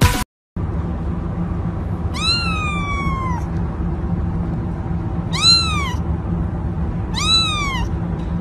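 A domestic cat meowing three times: one long drawn-out meow about two seconds in, then two shorter meows, over steady background noise.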